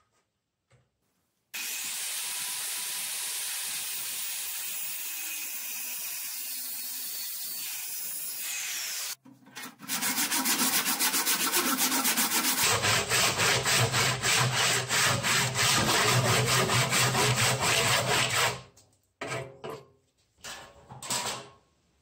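A handheld power tool runs steadily for about seven seconds. Then a handsaw cuts across the end of a braúna hardwood log in quick, even strokes for about nine seconds. A few short knocks follow near the end as the saw is set down.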